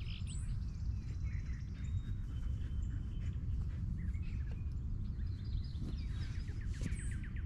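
Birds chirping over a steady low rumble, with a held whistle a few seconds in and a quick run of short notes near the end.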